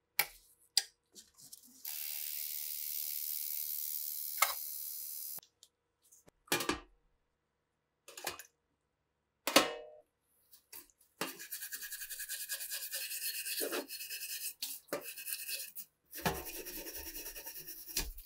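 A stiff brush scrubbing rusty steel submachine gun parts in a tray of cleaning liquid: a rough scratching that comes in spells through the second half. Before it there is a steady hiss lasting about three and a half seconds, then two sharp knocks of metal being handled.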